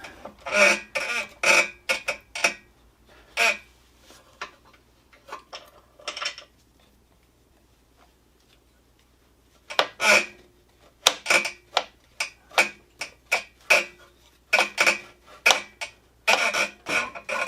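Ratchet wrench clicking in short runs while working loose the motorcycle's front brake caliper bolts, each click with a brief metallic ring. The clicking pauses for a few seconds about halfway, then resumes more densely.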